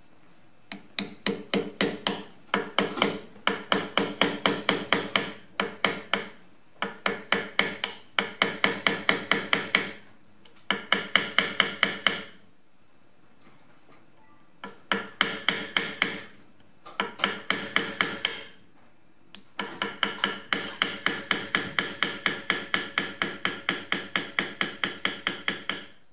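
Small hammer tapping a steel pin punch against a pistol slide, fitting the new front sight. Sharp metallic taps come in quick runs of about four or five a second, broken by several short pauses, with the longest run near the end.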